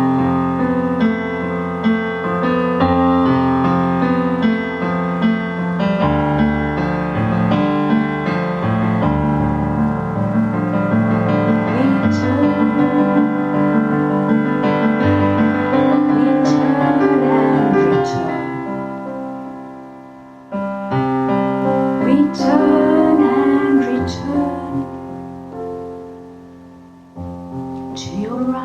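Piano music of held chords and notes. It fades away about two-thirds of the way through, comes back, then fades and returns again near the end.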